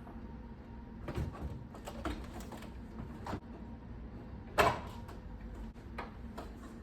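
Light clicks and knocks of a microwave door's parts being handled and fitted back together, with one louder knock about four and a half seconds in.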